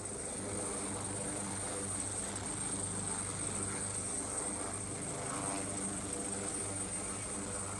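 Steady engine drone: a low, even hum with a thin high whine above it, unchanging throughout.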